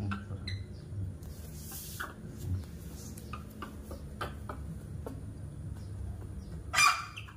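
Baby monkey clambering on a man's shoulder, with faint scuffs and clicks over a steady low hum, then one short, loud squeal near the end.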